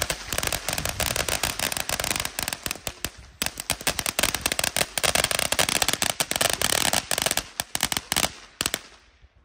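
Firecrackers going off in a rapid, dense string of sharp bangs, with a brief thinning about a third of the way through. The bangs die away shortly before the end.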